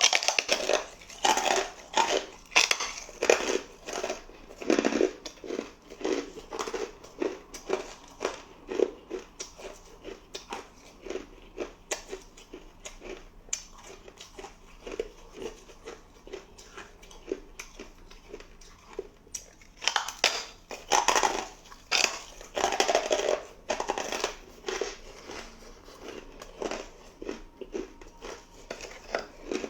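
Hard ice being bitten and chewed close to the microphone: loud crunching bites at first, then a steady run of quicker, smaller chewing crunches, with another burst of loud bites about two-thirds of the way through.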